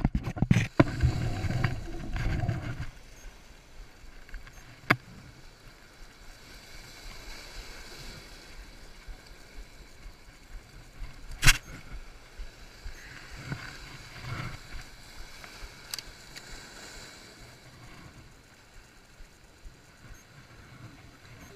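Waves washing against rocks, with a few seconds of loud rubbing and knocking near the start and a few sharp single clicks later on.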